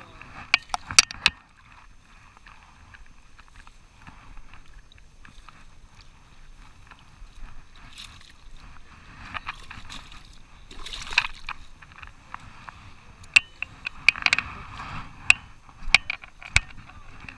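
Rubber waders stepping and sloshing in shallow water, with scattered sharp clicks and knocks, a cluster about a second in and more near the end.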